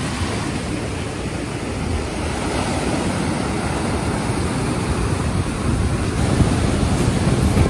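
Ocean surf: a steady rushing wash of breaking waves, swelling slightly toward the end.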